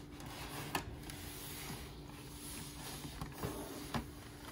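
Faint handling of a glossy cardboard shoebox: a few light taps and rubs as it is turned over in the hands, over a faint steady hum.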